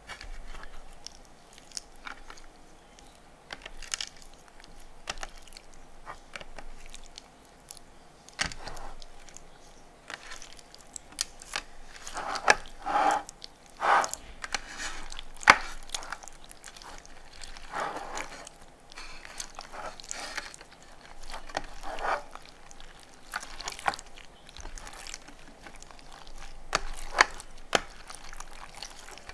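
Hands kneading and squeezing yellow foamy slime packed with beads: irregular squishing and crackling, with denser, louder crackles in the middle.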